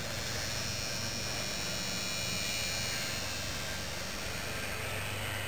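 Steady outdoor background: a low, constant hum under a thin, high, continuous insect buzz.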